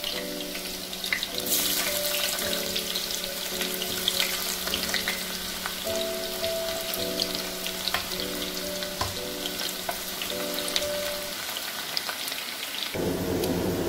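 Sliced onions sizzling and crackling steadily in hot sunflower oil and ghee, stirred with a wooden spatula near the end. Soft background music with held notes plays along and stops just before the end.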